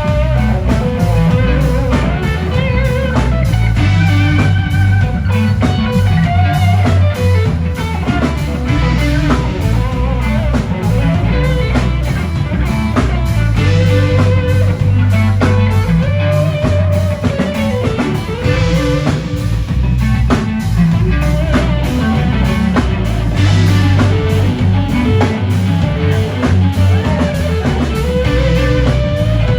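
Live rock band playing: a lead guitar plays sustained notes that bend up and down over bass and a drum kit's steady beat.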